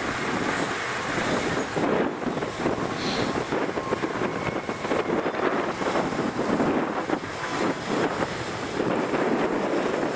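Narrow-gauge diesel-hydraulic sugar cane locomotive running past with a train of empty cane bins, the wheels and bins clattering on the rails, with wind buffeting the microphone.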